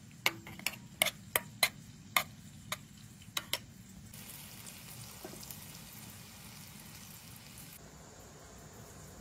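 A metal spoon clinks against a bowl about ten times in quick, uneven strokes while vegetable pieces are turned in beaten egg. After that comes a few seconds of steady hiss that starts and stops abruptly.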